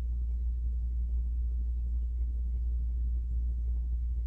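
Steady low background rumble that does not change, with no other sound standing out.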